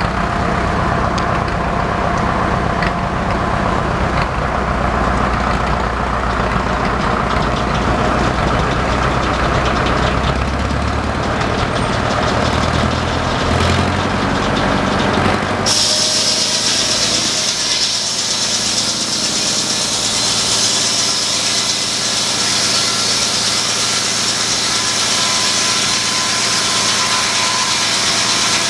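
Tractor engine running steadily to drive a flat-belt sawmill. About halfway through, the sound cuts abruptly to a steadier, higher hiss with a faint whine.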